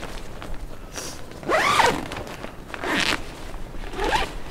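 Dome tent door zipper being pulled open in three short strokes; the second, about a second and a half in, is the longest and loudest.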